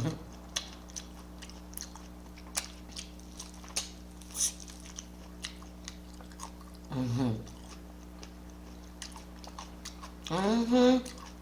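Close-miked chewing and biting, with wet mouth clicks and smacks scattered throughout. A short voiced sound around 7 s and another just before the end break in over a steady low electrical hum.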